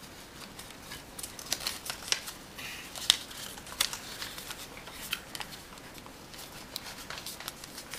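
Sheet of origami paper being handled, turned over and folded: scattered crisp rustles and crease snaps, the sharpest about three seconds in.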